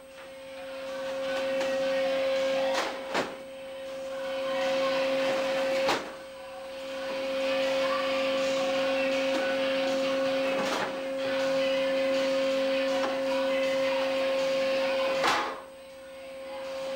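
Fish-processing machinery running with a steady drone and constant hum, broken by about five sharp bangs; after each bang the sound drops away and slowly swells back up.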